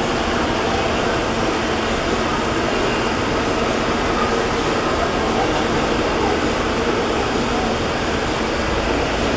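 Steady crowd din, many voices blended into a constant noise with no single sound standing out.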